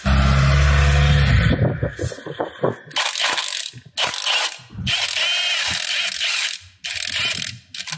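Cordless impact wrench (Milwaukee M18 Fuel) working the 14 mm bolts that hold the drive shaft to the differential flange: one long burst at the start, then several shorter bursts as the bolts break loose and spin out.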